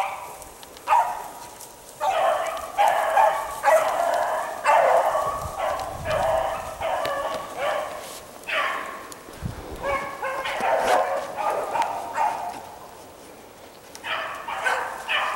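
A pack of rabbit beagles baying in the woods, several voices overlapping in repeated bursts: the sound of hounds running a rabbit's trail. The cry dies away for about two seconds near the end, then picks up again.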